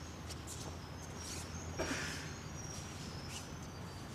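Low steady hum with faint rustling of cotton practice uniforms and bare feet moving on a padded mat, and a soft thump about two seconds in.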